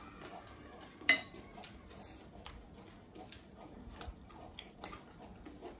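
Eating sounds: scattered light clicks and ticks of metal spoons against glass plates and of chewing a crunchy chatpat snack, the sharpest click about a second in.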